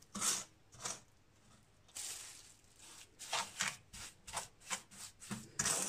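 A spatula scraping and squishing a thick paste of ghee-roasted gram flour and sugar against a nonstick pan in short strokes. There is a pause about a second in, and the strokes come quicker over the second half.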